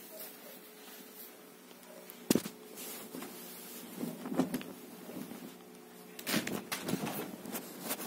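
Handling noise: a sharp knock a little over two seconds in, then bouts of rustling and bumping near the middle and toward the end, over a faint steady hum.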